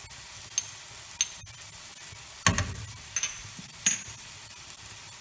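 Diced tomatoes and onions sizzling steadily in a stainless steel frying pan, with a few sharp metallic clinks and one louder knock about halfway through as spices are spooned in.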